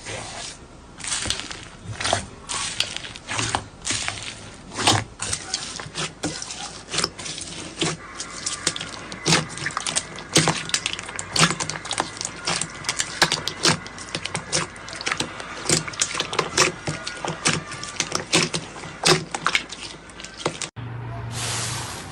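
Slime being squeezed and poked by hand: an irregular run of wet clicks and pops, several a second. Just before the end it cuts suddenly to a steadier hiss with a low hum.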